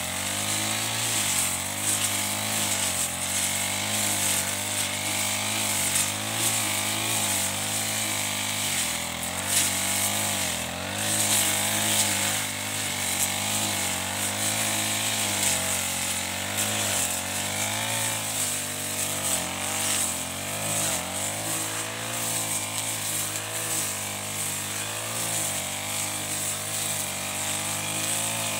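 Backpack four-stroke brush cutter with a Chinese Honda-copy engine running at high speed while cutting grass and weeds. The engine pitch wavers up and down as the load on the cutting head changes.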